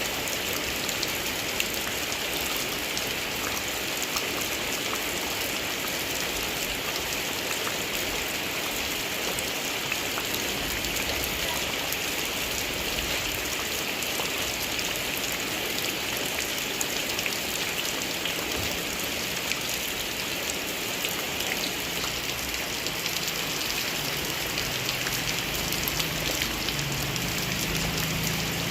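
Steady heavy rain falling, with many small sharp drop hits close by.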